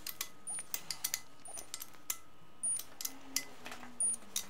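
Ratchet of a torque wrench clicking in short, irregular strokes as crankcase nuts are tightened.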